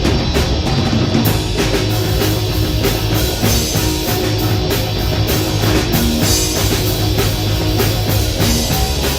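Rock band playing live: electric guitar and bass over a drum kit keeping a fast, steady beat.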